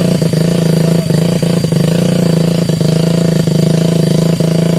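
An engine running at a steady speed: a constant low drone that holds one pitch, broken by a few momentary dips.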